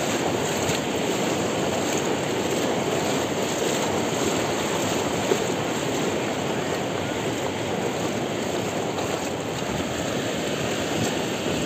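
Muddy floodwater rushing steadily across a road and around heaps of earth, an even, unbroken wash of flowing water.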